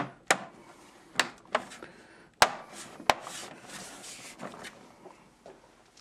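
Sharp knocks and clicks from handling the moulded plastic tool case and its metal tools: about six in the first three seconds, the loudest about two and a half seconds in, then a softer rustling that fades away.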